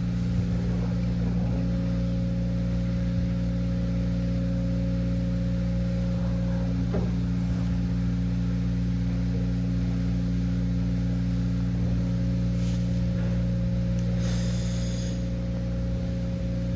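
Steady low mechanical hum of running machinery, unchanging throughout. A brief high-pitched sound about three quarters of the way through.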